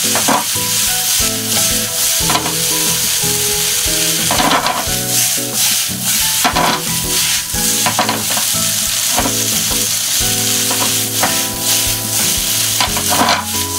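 Sliced potatoes, bacon, sausage and onion sizzling in oil in a frying pan over high heat. They are stirred to coat them in whole-grain mustard, with a stirring stroke about every two seconds. Soft background music with a simple melody plays underneath.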